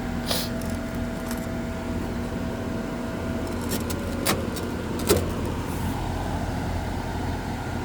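Pool heating equipment running with a steady mechanical hum. A faint tone in it stops about three and a half seconds in, and two sharp clicks follow about a second apart.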